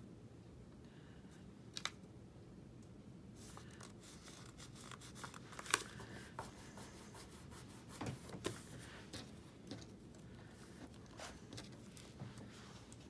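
Cardstock and vellum paper rustling and rubbing as a kraft paper tag's flap is folded over and creased down by hand, with scattered light taps and one sharper click about six seconds in.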